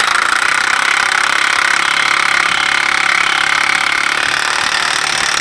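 Impact wrench with a 35 mm socket running the rear axle nut down onto the new hub bearing, hammering steadily.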